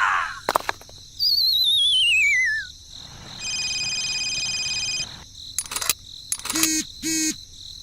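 A string of whistle and tone effects: a wavering whistle falling in pitch, then a steady electronic tone of several notes at once lasting about a second and a half, then quick clicks and short chirps near the end.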